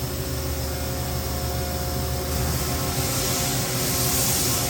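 Steady hum and hiss of running shop machinery, with several steady tones through it; the low hum drops back about two and a half seconds in.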